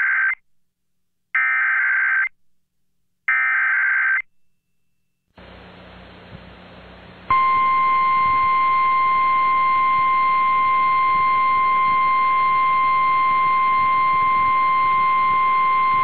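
NOAA Weather Radio EAS alert. The last three buzzing bursts of the SAME data header, about a second apart, carry a coded tornado warning. After a short silence and faint radio hiss, the steady 1050 Hz warning alarm tone comes in about seven seconds in and holds for about nine seconds.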